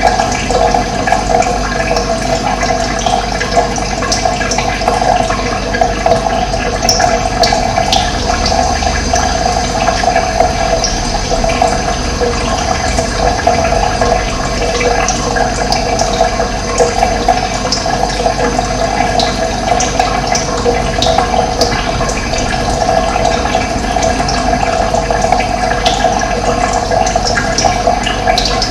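Running water, a steady loud rushing, with short faint bird chirps high above it.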